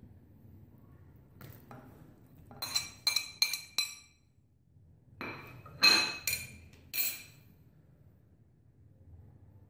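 Metal spoon clinking against a glass dish as diced raw chicken is scraped out into a bowl, each clink with a short glassy ring. A quick run of clinks comes about two and a half seconds in, then a louder run around six seconds in.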